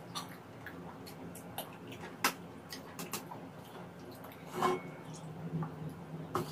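Eating sounds: a metal spoon clicking a few times against a nonstick grill pan, the sharpest click about two seconds in, then a plastic cup of milk being handled and drunk from near the end.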